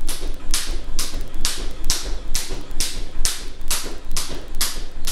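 Jump rope turning at a steady pace, a little over two turns a second, each turn a swish and slap of the rope against a wooden floor.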